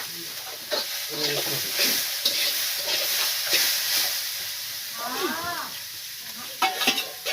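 Food sizzling in hot oil in a pan while a spatula stirs and scrapes it, with scattered clicks and a run of clatter near the end.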